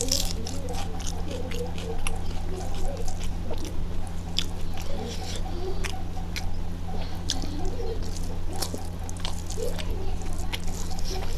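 Close-miked chewing of a mouthful of rice and curry, with many short wet mouth clicks, together with fingers mixing rice on a steel plate. A steady low hum runs underneath.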